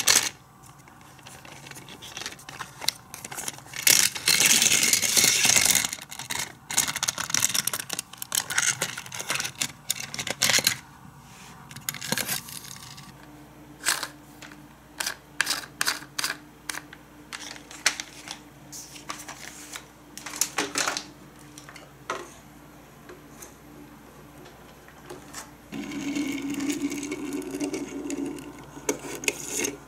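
Hard plastic toy-playset pieces clicking, knocking and clattering as they are handled and fitted together, with a louder rattling stretch a few seconds in. Near the end a steadier scraping sound lasts a few seconds as a die-cast toy vehicle is handled on a wooden table.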